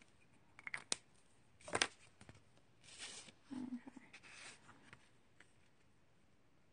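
Paper being handled: a few light taps and a sharp click in the first two seconds, then rustling as a glued watercolor paper panel is lifted and pressed onto a card base.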